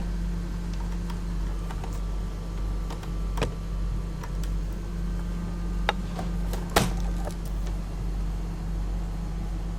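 Canon LiDE 120 flatbed scanner's carriage drive running after power is connected, a steady motorised hum with a few sharp clicks and knocks, the loudest about seven seconds in. The noise comes from the scan carriage being out of alignment.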